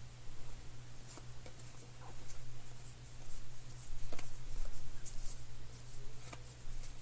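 A stack of cardboard baseball cards being thumbed through by hand, cards sliding and flicking against each other in short, irregular swishes.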